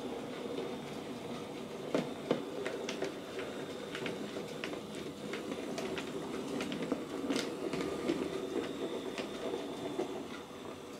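OO gauge model Andrew Barclay 0-4-0 saddle tank locomotive running with a rake of wagons: a steady motor whir with the wheels clicking over rail joints and points, two louder clicks about two seconds in. The loco is brand new and has not yet been oiled.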